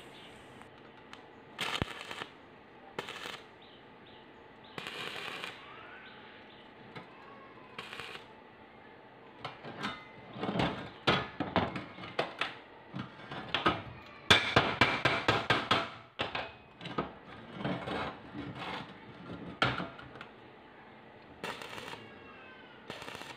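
Pieces of thin square steel tubing clanking and knocking as they are handled and set together on a steel bench. Near the end there are short bursts of crackling from a stick-welding arc as tack welds are struck.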